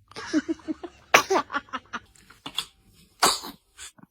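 A baby sneezing, with short squeaky breaths and small vocal sounds between the sneezes. A sharp sneeze comes just after a second in, and a louder, hissy one comes near the end.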